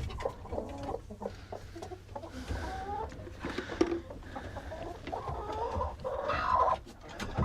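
Chickens clucking and calling in the coop, with a few light knocks mixed in.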